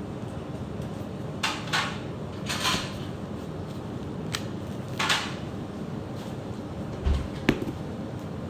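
Kitchen handling sounds: a few short scrapes and knocks, then a low thump about seven seconds in followed by a sharp click, over a steady low hum.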